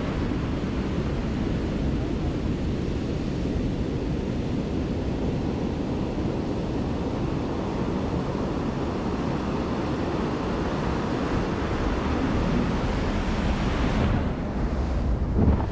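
Breaking surf and foaming water rushing around the hull of a small fiberglass boat in the waves, with wind buffeting the microphone. A louder splash near the end.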